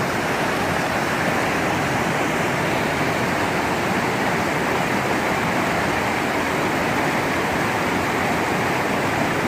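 Steady, even rush of water falling from a waterfall.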